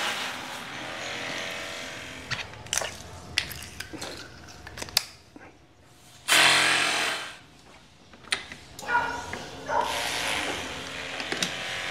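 Handheld battery-powered snow foam sprayer running once for about a second, its small motor whirring as it sprays foam. Before it, a small 12 V water pump and its spray run and trail off, followed by scattered clicks and knocks of hose and fittings being handled.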